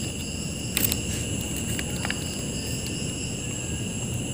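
A few light clicks from fingers handling a flat ribbon cable and paper shim at a TV's T-con board connector, the sharpest about a second in, over steady high-pitched background tones.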